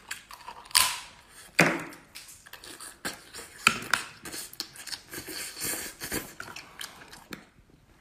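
Close-up eating sounds from a man eating brown crab by hand: wet chewing, sucking and lip smacks, with irregular clicks from the shell.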